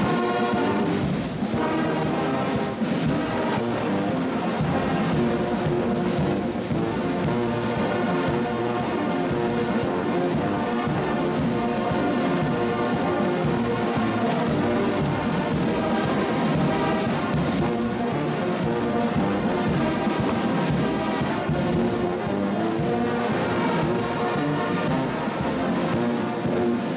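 Brass band of trumpets, euphoniums and sousaphones playing together in held chords, cutting off sharply at the end.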